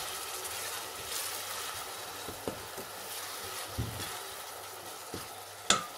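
Chopped onions sizzling in hot oil in a stainless steel pot as they fry toward browning, stirred with a wooden spoon. The spoon knocks against the pot a few times, loudest near the end.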